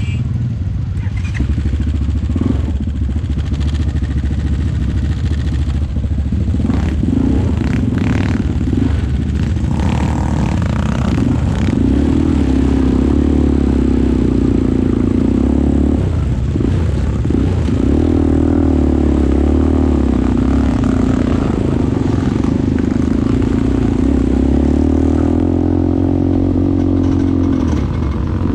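ATV engine running steadily while under way, its pitch shifting a little with the throttle and briefly dipping about halfway through. There is some clattering over the first third.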